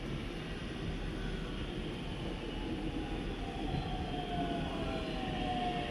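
Electric commuter train approaching along a station platform: a steady rumble with a thin whine that falls in pitch through the second half.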